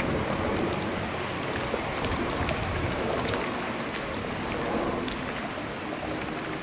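Center-console boat coming in slowly on its outboard motor, a low engine hum under an even wash of water noise with small scattered splashes.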